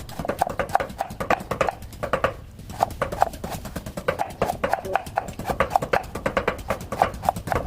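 Rapid, uneven knife chops on a wooden cutting board, several strikes a second.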